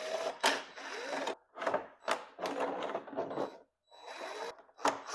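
Cordless DeWalt impact driver backing screws out of a plastic dashboard in several short runs, each from a fraction of a second to about a second and a half long, with brief pauses between them. The motor whirs up in pitch at the start of some runs.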